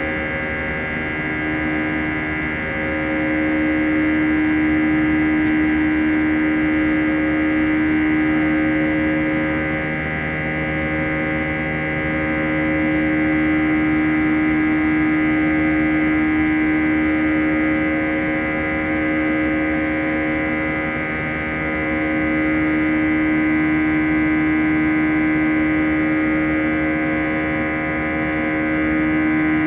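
CFM56-5A turbofan engines of an Airbus A320, heard from inside the cabin: a steady buzz made of many held tones, slowly swelling and fading about every ten seconds.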